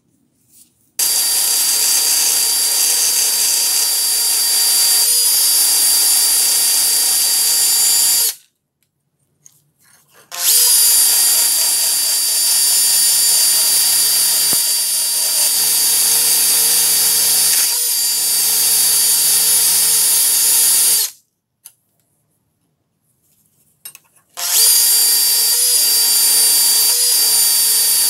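Handheld rotary tool with a sanding drum running at high speed with a steady high whine, sanding rust off the steel beam of an old vernier caliper. It runs three times: from about a second in to about 8 seconds, from about 10 to 21 seconds, and from about 24 seconds on, with short pauses between.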